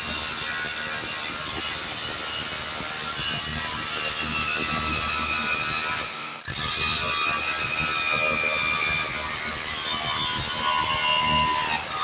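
Electric hammer drill with a chisel bit hammering continuously, chipping old tiles off, with a brief stop about halfway through.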